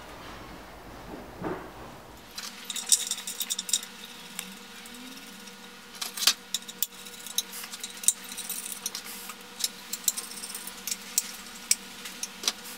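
Steel bolts and washers clinking and rattling as they are picked up and handled, a string of irregular sharp clicks starting a couple of seconds in.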